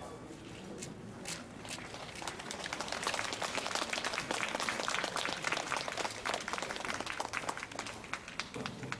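Audience applauding, scattered at first, filling in over the first few seconds and thinning out near the end.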